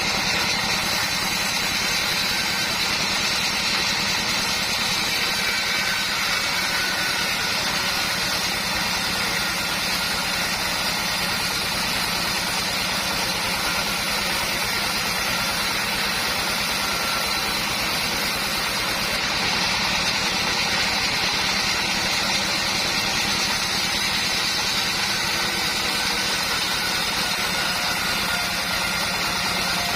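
Homemade sawmill's engine and saw running steadily, a constant hum with a high steady whine over it and no change in pace.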